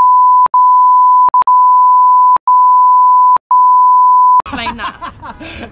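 A censor bleep: a steady, loud single-pitched beep laid over the speech, blanking everything else. It is broken by a few split-second gaps with clicks where separate bleeps meet, and ends about four and a half seconds in.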